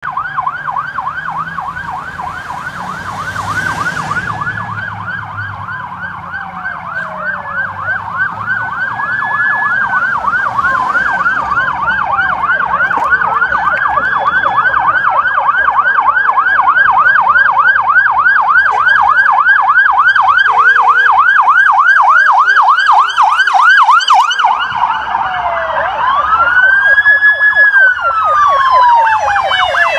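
Emergency-vehicle sirens, one in a fast yelp overlapped by others wailing in slow rises and falls, growing louder as the vehicles approach.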